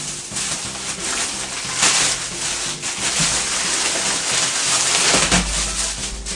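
Thin plastic bag rustling and crinkling as it is untied and tipped out, with wrapped Bourbon Petit snack packets sliding out onto a wooden floor. A dull thump comes near the end.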